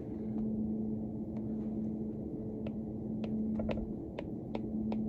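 Steady low hum, joined from about two and a half seconds in by a run of light, irregular taps of a pen writing, several a second.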